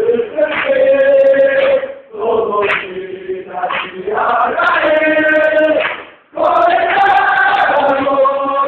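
A group of people singing together in unison in long held phrases, with two short breaks.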